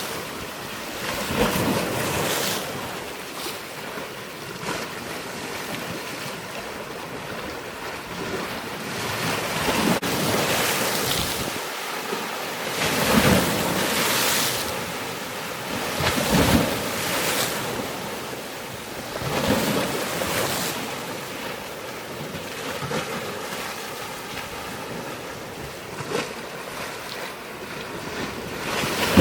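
Water washing in irregular surges a few seconds apart, like waves, with wind noise on the microphone.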